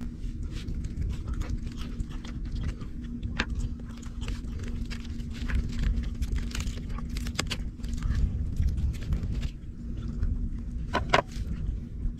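Small scattered clicks and scrapes of fingers picking grilled fish off a tray, with chewing, over a low uneven rumble and a faint steady hum.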